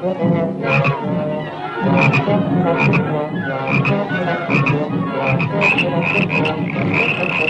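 Cartoon orchestral score of low brass, short repeated croak-like notes.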